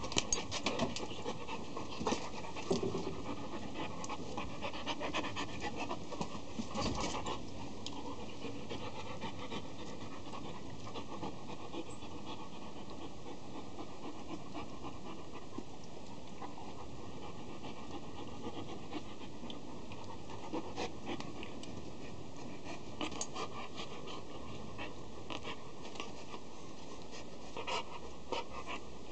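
A 10-month-old Akita dog panting steadily while it mouths and play-bites a person's hand. Scattered clicks and scuffs come through the first several seconds and again near the end.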